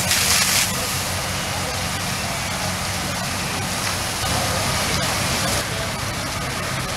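Steady rushing hiss of fire hose streams spraying water onto a burning house, swelling briefly twice, over the low steady drone of an engine running.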